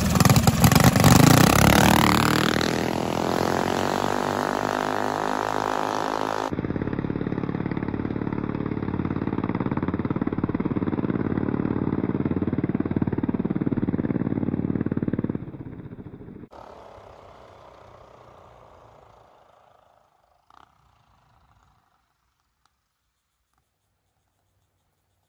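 Two racing minibikes' single-cylinder four-stroke engines revving hard at the launch, then running steadily at high revs as the bikes pull away. About two-thirds through, the engine sound drops and fades away to near silence.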